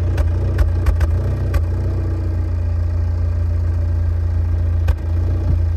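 Car engine running with a steady low drone, with several sharp clicks in the first second and a half and one more near the end. The engine has a misfire that new spark plugs have not yet cured.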